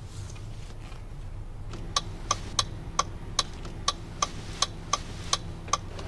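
A car's power door locks clicking over and over, about eleven sharp clicks at roughly three a second, starting about two seconds in and stopping just before the end, over a steady low hum.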